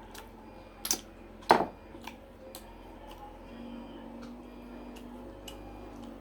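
Eating sounds: a series of sharp clicks and taps, the loudest about a second and a half in, over a faint steady hum.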